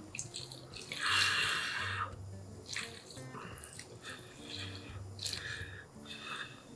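A person slurping a mouthful of Chapagetti black-bean-sauce noodles in one long slurp about a second in, followed by wet chewing and lip smacks.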